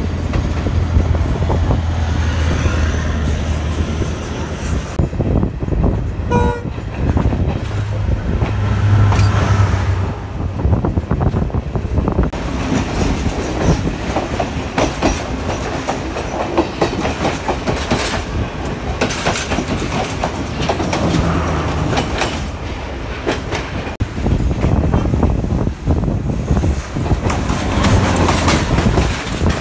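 Sri Lanka Railways passenger trains running past close by: a steady rail rumble with the clickety-clack of wheels over rail joints, changing abruptly a few times between clips.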